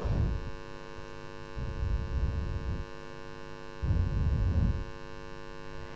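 Steady electrical mains hum from the sound system, a ladder of even tones, with two brief low rumbles, about a second and a half in and again about four seconds in.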